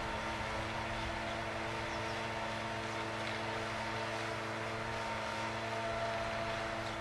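Kubota MG73 tractor's diesel engine running at a steady speed while it pulls a rotary tiller through dry stubble, a constant even drone with no change in pitch.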